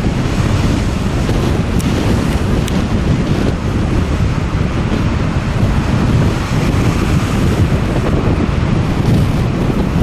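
Strong wind buffeting the microphone in a steady deep rush, over a rough storm sea whose waves break and throw spray against a concrete harbour wall.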